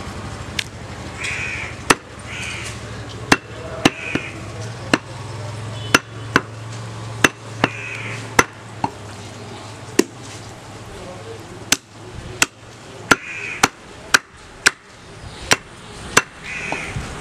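Heavy butcher's cleaver chopping goat meat and rib bone on a wooden log chopping block. There are about twenty sharp chops, irregularly spaced, roughly one or two a second.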